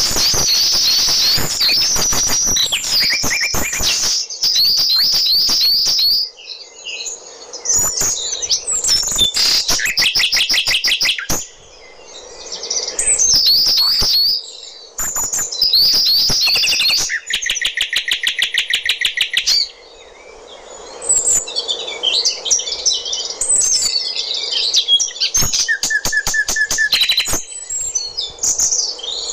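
Several small birds chirping and twittering, with overlapping calls and a few fast trills, one long trill about two-thirds of the way through.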